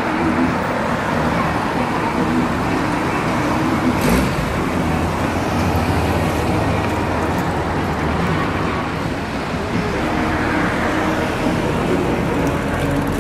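Classic car engines running at low speed amid steady street traffic noise, with a brief thump about four seconds in.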